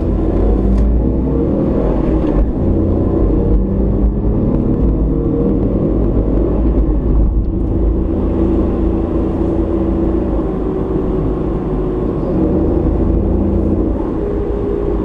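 A car's engine and road noise heard from inside the cabin while driving: a steady low rumble with an engine note that rises and falls gently.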